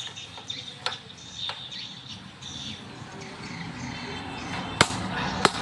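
Hand tools and metal engine parts clinking: a few sharp clicks over steady background noise, with two loud ones near the end.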